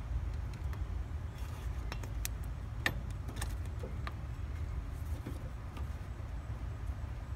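Faint scattered clicks and ticks of a serpentine belt being handled and seated on an alternator pulley, the sharpest about three seconds in, over a steady low rumble.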